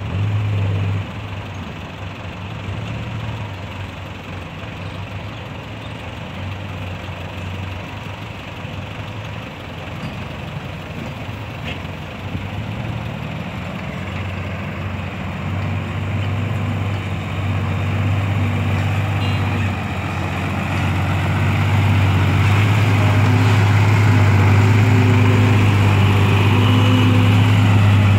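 Isuzu six-wheel dump truck's diesel engine running steadily, getting louder in the last several seconds as the truck drives up and passes close by.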